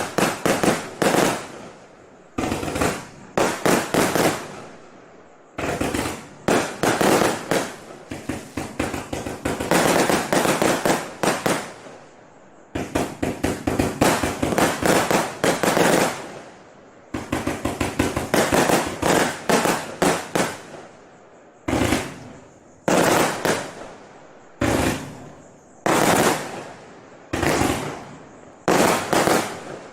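Gemstone 'Guess What (Girl)' firework going off in rapid volleys of sharp bangs and pops. Each volley lasts a second or two, with short pauses between them.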